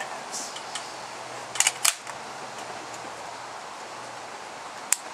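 Gunshots: three sharp cracks in quick succession about a second and a half in, and a single one near the end, over a steady background hiss.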